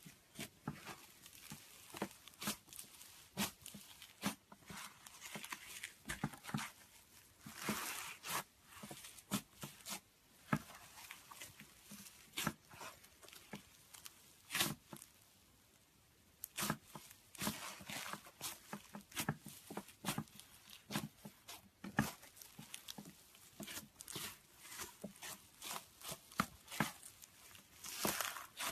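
Fluffy slime squeezed, poked and pulled apart by hand, giving many irregular small crackling pops and short tearing sounds.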